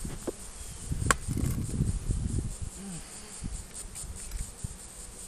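Honeybees buzzing over an open hive, one flying close by about three seconds in. Low rustling in the first half and a sharp click about a second in.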